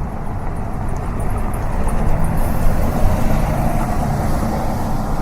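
City street traffic: a steady rumble of vehicle engines and tyres, swelling louder about halfway through as a vehicle passes close.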